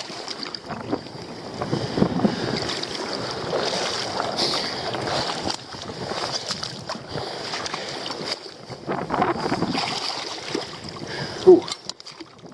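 Wind buffeting the microphone over sea water washing and lapping among rocks on the shore, an uneven rushing noise that rises and falls.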